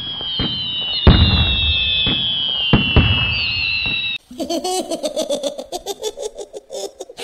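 Firework whistles sliding slowly down in pitch over crackling, with a few sharp bangs, then, about four seconds in, a run of rapid pulsing laughter.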